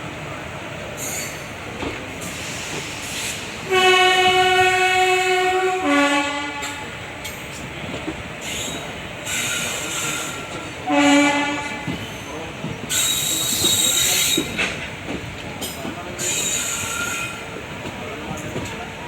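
A WAP-4 electric locomotive's horn sounds a long blast about four seconds in that drops to a lower note, then a short lower blast around eleven seconds. Beneath it runs the steady rumble of ICF coaches on the track, and near the end comes a brief high-pitched wheel screech.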